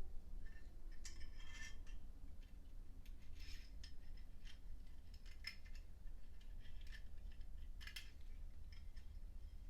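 Zippo lighter being handled: a scatter of light metallic clicks and scrapes from its brass case and insert.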